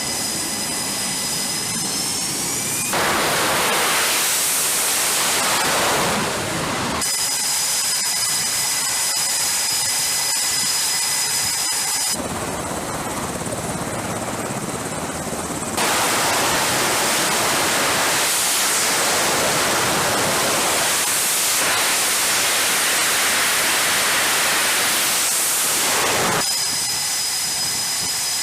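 Jet aircraft engines running on a carrier flight deck. A high turbine whine alternates with a dense jet roar, and the sound switches abruptly between them several times.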